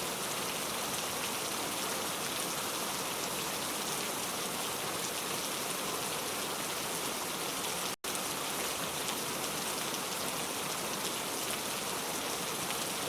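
Heavy rain pouring steadily, a dense even hiss of drops on a surface. It cuts out for a split second about eight seconds in, then resumes just as before.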